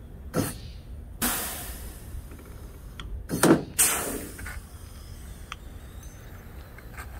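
Air-powered rivet gun setting pop rivets into a truck fender, cycled twice. Each time a short sharp pull is followed by a hiss of air that dies away over about a second.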